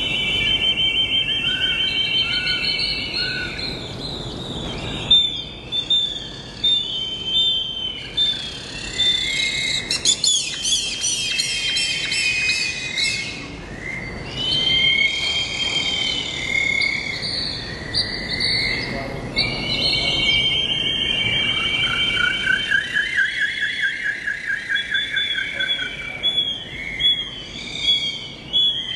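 A chorus of several birds calling at once: rapid trills lasting a few seconds each, overlapping with short chirps and whistled notes.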